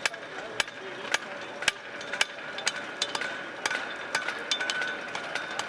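Blacksmiths' hammers striking hot steel on anvils, a steady blow about every half second, with more hammers joining in at an uneven pace from about three seconds in. The anvils ring on after the blows.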